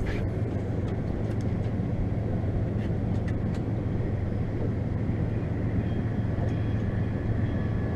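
Boat motor running at a steady low hum under an even wash of noise. A faint thin whine joins about six seconds in.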